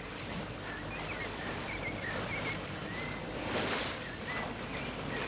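Water washing along the hull of a wooden sailing wherry under way, mixed with wind, with a louder rush of water about three and a half seconds in and faint high chirps above it.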